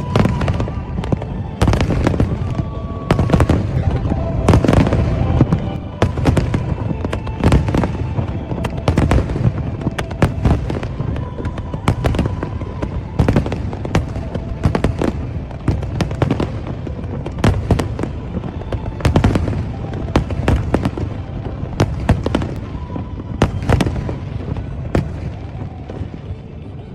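Aerial fireworks going off in rapid succession, a dense run of sharp bangs with rumbling tails.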